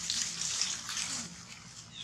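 Dry fallen leaves crackling and rustling as a macaque rummages through the leaf litter with its hand, easing off a little after about a second.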